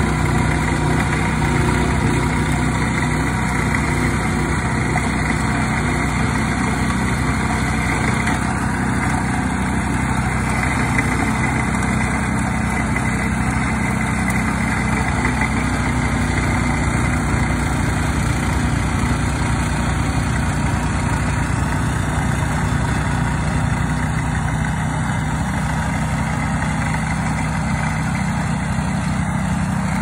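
Walk-behind snowblower's gasoline engine running steadily while it throws snow from its chute.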